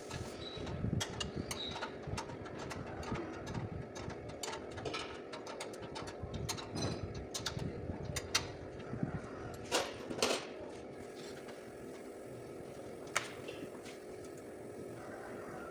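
Scattered light knocks and clicks over a steady mechanical hum, with a couple of louder knocks near the end.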